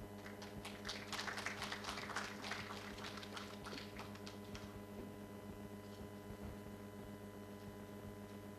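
Scattered applause from a small audience, thinning out and stopping about four to five seconds in, over a steady low hum.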